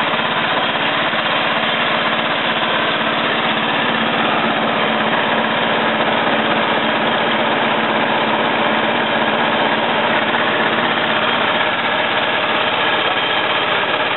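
Small single-cylinder petrol engine running steadily, turning a radial engine that has its cylinder heads off so that its pistons run up and down on a motored test rig.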